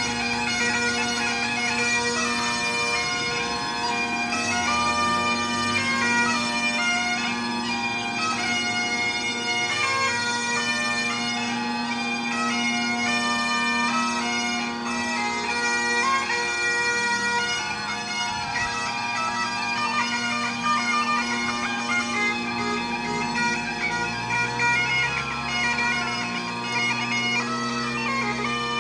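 Bagpipes playing a tune inside a railway tunnel: the chanter's melody moves over a steady, unbroken drone.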